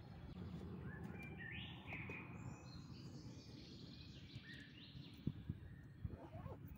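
Small birds chirping: a run of short, quick call notes starting about a second in and lasting a few seconds, over low steady background noise. A couple of faint knocks near the end.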